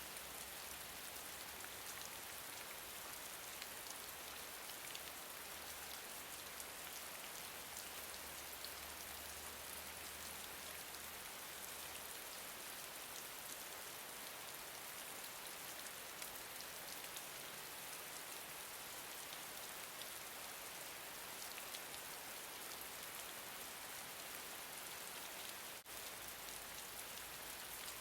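Steady gentle rain: an even hiss of falling rain dotted with many small raindrop ticks. The level dips for an instant about two seconds before the end.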